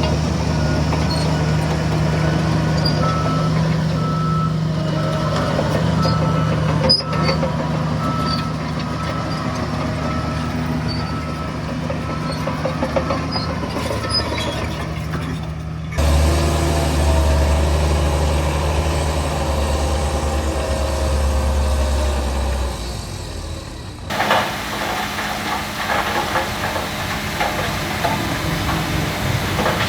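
Heavy diesel engines of earthmoving machines and dump trucks running, with a reversing alarm beeping evenly through the first half. The sound changes abruptly to a deep engine rumble about halfway, then to a rattling clatter with engine noise near the end.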